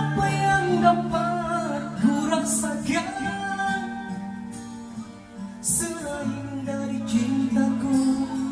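A man singing into a microphone over amplified music with guitar and sustained low notes, in sung phrases with a short break about five seconds in.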